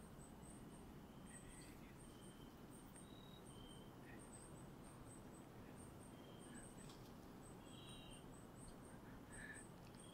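Faint night-time forest chorus of calling insects and frogs: short, high chirps repeating irregularly several times a second, with occasional brief whistled notes lower in pitch, over a low hiss.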